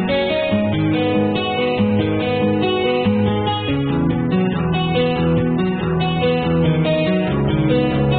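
Background music on acoustic guitar, chords changing every second or so.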